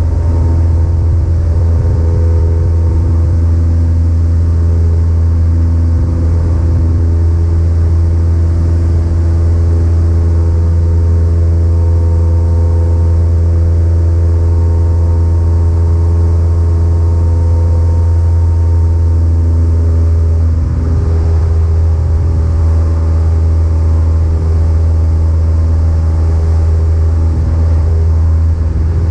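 Cessna 172 piston engine and propeller running with a steady, loud drone, its note shifting slightly about two-thirds of the way through.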